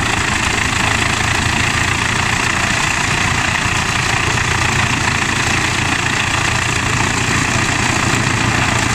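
Tractor-driven Eschlböck Biber 84 wood chipper running steadily as it chips timber fed in by its crane, with the CLAAS Xerion 4200 tractor's engine running under load to drive it.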